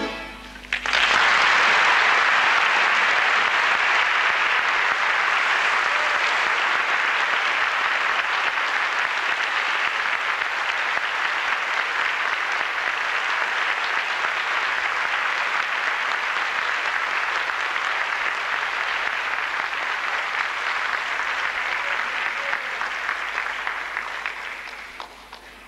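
Audience applauding after a classical guitar performance: the applause breaks out about a second in, holds steady, and dies away near the end.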